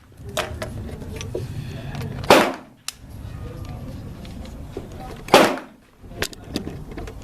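Two gunshots about three seconds apart, each a sharp crack with a short echoing tail, with fainter clicks and knocks between them.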